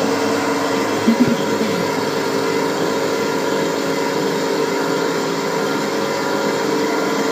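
Vestel Tarçın S stand mixer running steadily, its motor humming as a freshly fitted beater attachment mixes runny muffin batter in the bowl, with a couple of brief knocks about a second in.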